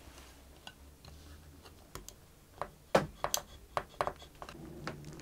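Thin metal blade clicking and knocking against a violin's fingerboard and neck as it is forced into the glue joint to pry the fingerboard off, the joint not giving. A cluster of sharp clicks in the middle, the loudest about three seconds in.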